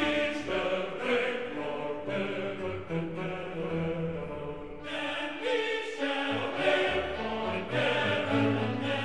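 Music with a choir singing long held notes over orchestral accompaniment; the higher voices come in more strongly about five seconds in.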